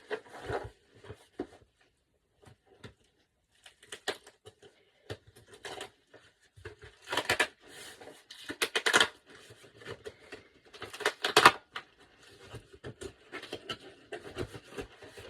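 Packaging being torn and crinkled open by hand in irregular crackly bursts, loudest about seven, nine and eleven seconds in.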